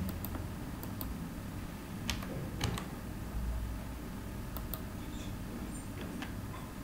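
Computer keyboard keys being typed: scattered sharp clicks, a few at a time with pauses between, over a steady low hum.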